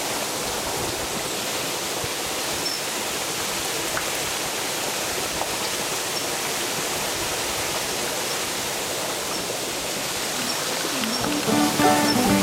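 Steady rush of running water. Background music comes in near the end.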